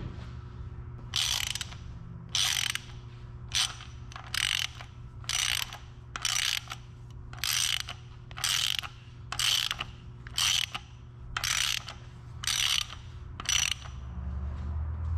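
Ratchet wrench clicking through about a dozen short back-strokes, roughly one a second, turning the bolt of a cam seal installer to press a camshaft oil seal into a Mazda 1.6 cylinder head. A steady low hum runs underneath.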